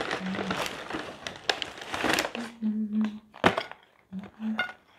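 Paper takeaway bag rustling and crinkling for about two seconds as a hand rummages inside it. Then a brief wordless hum, a single sharp knock about three and a half seconds in, and another short hum.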